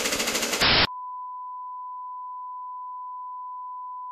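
Vintage Nerf Wildfire air-powered blaster firing full auto: a loud, fast rattle that cuts off abruptly within the first second. A steady high beep follows, the test tone that goes with colour bars.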